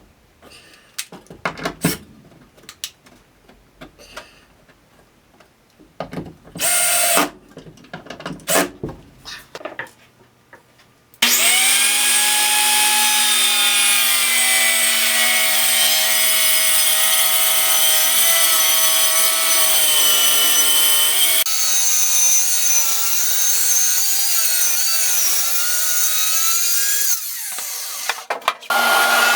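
Scattered knocks and clicks of wood and tools being handled, with a short burst of a power tool about seven seconds in. From about eleven seconds a woodworking power tool runs steadily on wood with a whining tone that wavers under load, and it stops near the end.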